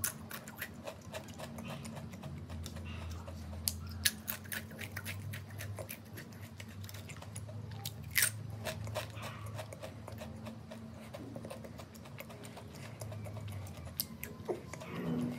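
Close-miked crunching and chewing of Pringles potato crisps: a run of crisp little cracks, with louder crunches about four and eight seconds in.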